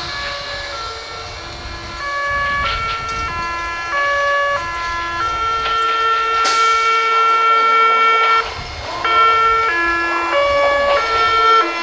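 Meitetsu 7700 series train's music horn playing its melody: a run of stepped notes with one long held note in the middle. It breaks off briefly and then starts the tune again.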